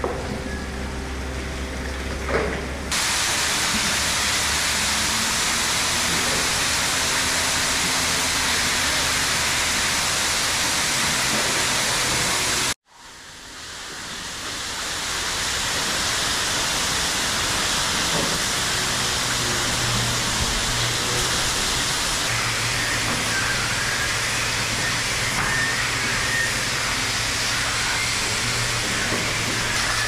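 Water hose spraying hard onto the concrete yard floor, a steady loud hiss. It starts abruptly about three seconds in, cuts out for a moment near the middle and swells back to the same steady level; before it starts, a low machinery hum.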